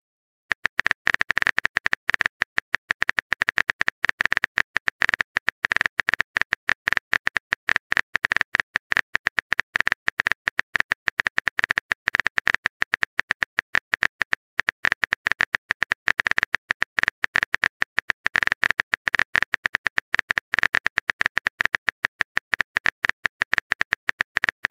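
Keyboard typing sound effect: a rapid, uneven run of short clicks, several a second, starting about half a second in.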